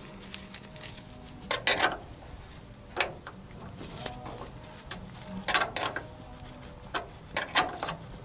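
Scattered metallic clicks and short rattles of tools and parts being handled while working on a wire connection, in several small clusters.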